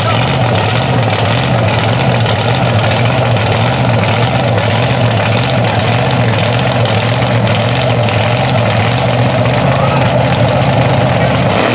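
Mud truck engine idling steadily, with a low, even rumble that holds at one pitch and level throughout.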